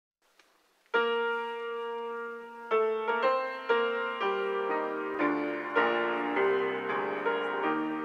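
Piano playing slowly: a chord struck about a second in and held, then single notes and chords about every half second, each ringing on as it fades.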